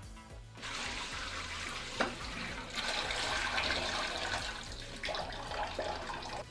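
Water rushing from a bathroom fixture, starting about half a second in and running steadily, with a sharp click about two seconds in.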